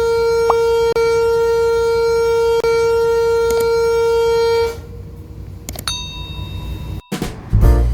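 Ship's horn sounding one long, steady, loud blast that stops after about four and a half seconds, as the ferry manoeuvres to berth. Background music starts near the end.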